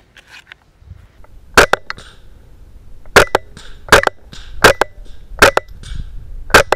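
Smith & Wesson M&P 15-22 semi-automatic .22 LR rifle fired six times at an uneven pace, fitted with a sound moderator and shooting subsonic ammunition. Each sharp crack is followed closely by a smaller click.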